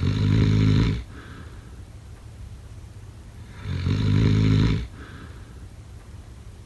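A sleeping person snoring: two loud, rasping snores about four seconds apart, each lasting about a second and trailing into a short, softer breath.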